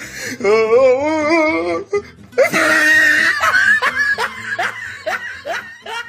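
A person laughing loudly: a long wavering peal, then a run of short rising bursts of laughter, about three a second.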